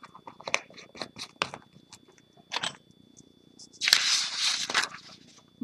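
A scrap sheet of paper being handled while loose embossing powder is poured off it. There are small crinkles and ticks of paper at first, then a loud paper rustle about four seconds in as the sheet is lifted and moved.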